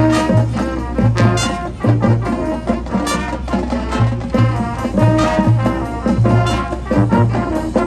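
High school marching band playing its field show: a brass section over a drumline, with a low drum pulse on the beat.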